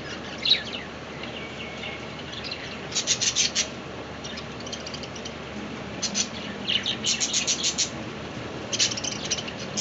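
Small pet parrot chirping in several quick runs of sharp, high chirps, over a steady background hiss.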